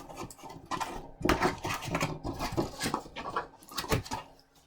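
Takeout food packaging being handled and put away: irregular crinkling, rustling and light clattering.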